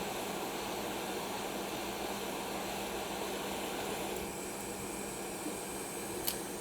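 Hot air rework station blowing a steady hiss of air, switched on just before, with the tone shifting slightly about four seconds in. A faint click near the end.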